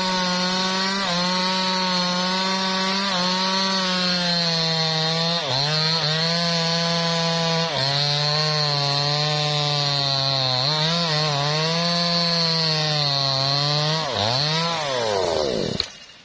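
Maestro MT6500L two-stroke chainsaw at full throttle crosscutting a teak log, its engine pitch dipping briefly several times as the chain bites. Near the end the cut goes through, the engine revs up once, falls away and stops.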